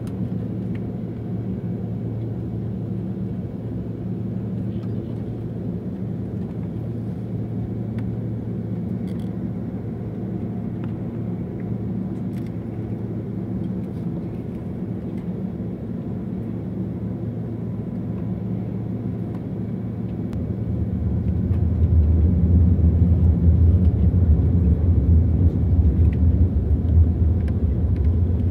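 Jet airliner cabin noise while taxiing: the steady low drone of the engines at idle and the aircraft rolling. About two-thirds of the way through, the low rumble swells noticeably louder.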